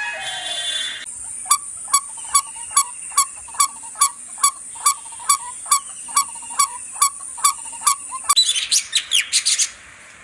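Bird calls from spliced-together recordings: a short call repeated evenly about two and a half times a second over a steady high-pitched whine, then a quick burst of chirps near the end.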